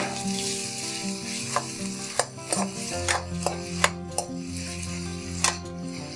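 Sliced onions and chillies sizzling as they fry in oil in an aluminium kadai, with a metal spoon stirring and scraping them and knocking against the pan in sharp clicks many times.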